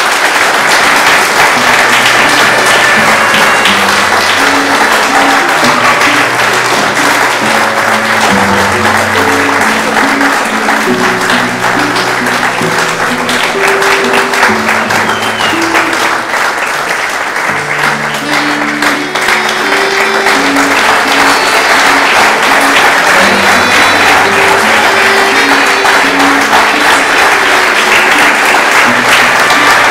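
Audience applause over music, the clapping a dense steady crackle with sustained melody and bass notes moving beneath it.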